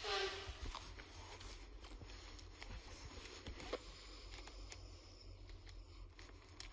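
Pokémon cards in a binder's plastic sleeve pages being handled: soft rustles and light taps as a hand moves over the cards, over a low steady hum. A short falling-pitched sound at the very start is the loudest moment.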